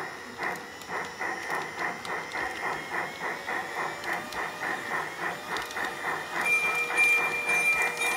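Piko G-scale BR 80 model steam locomotive running with steam chuffs that pick up from about two to over three a second as it gathers speed. A steady high tone comes in near the end.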